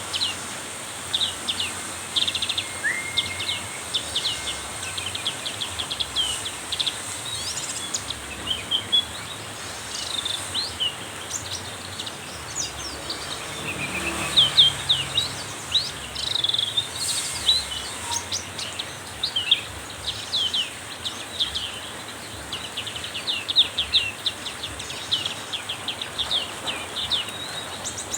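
Black-capped white-eye singing nonstop, running quick high chirping and trilling phrases together, over the steady hiss of heavy rain.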